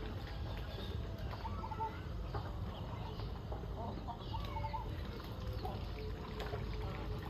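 Chickens clucking at feeding time: many short, scattered calls over a steady low background rumble.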